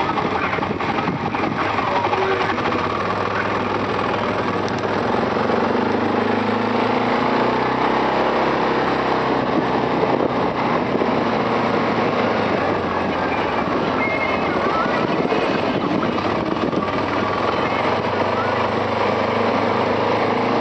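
Arctic Cat 700 TRV ATV's single-cylinder four-stroke engine running under way, its pitch rising and falling as the machine speeds up and slows on pavement and then gravel.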